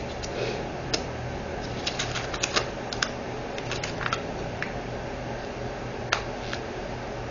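Scattered light clicks and taps of small plastic diamond-painting drill containers being handled, lids snapping and cases knocking together, some in quick clusters, over a faint steady hum.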